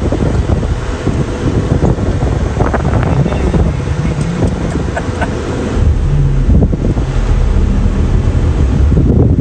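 Wind buffeting the microphone from a moving car, over the steady rumble of road and engine noise.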